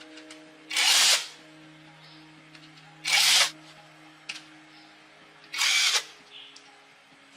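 Handheld power tool run in three short bursts, about half a second each and roughly two and a half seconds apart, with light clicks and taps of handling in between.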